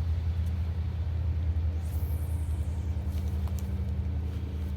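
Steady low hum of an idling engine, with a faint high falling whine about two seconds in.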